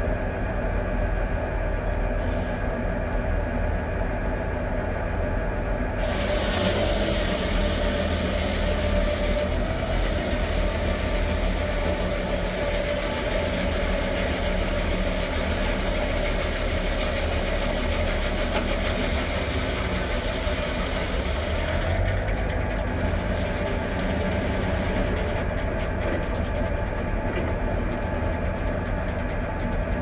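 Foley Belsaw circular sawmill with a 52-inch blade, driven off a Ford 4000 diesel tractor, running steadily. From about six seconds in, the blade cuts through a pine log for about sixteen seconds, adding a bright hiss of sawing and pulling the blade's pitch slightly lower under load, then it spins free again.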